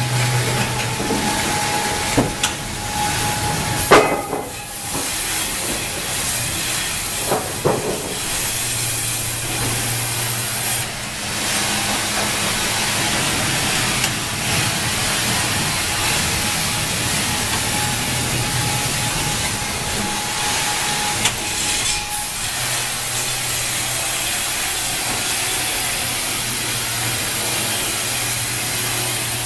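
Wravor horizontal band sawmill running, its band blade sawing through a squared log as the saw head travels along its rails: a steady hiss, with a few knocks in the first eight seconds and a low hum that comes and goes.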